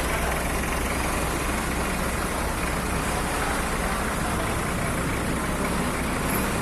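Small engine of a tamping rammer (soil compactor) running steadily.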